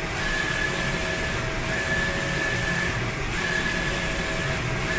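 Roland SolJET EJ-640 large-format inkjet printer running a print job: a steady mechanical whirr with a high motor whine that cuts out briefly about every second and a half as the print-head carriage makes its repeated passes.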